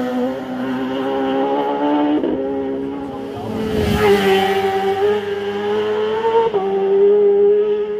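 Race superbike engine at high revs on a warm-up lap, its note climbing slowly and breaking three times at gear changes, about two, four and six and a half seconds in.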